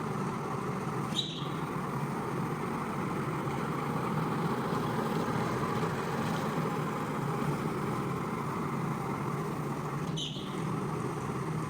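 A carpet-cleaning machine running steadily, with two brief high squeaks about a second in and near the end.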